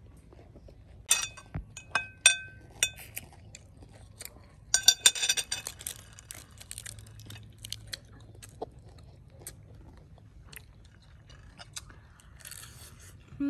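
Fork and chopsticks clinking against a plate of sliced steak: a few sharp ringing clinks about a second in and a rattling cluster of clinks about five seconds in. Near the end, a crunchy bite into a raw cabbage leaf wrapped round steak, and chewing.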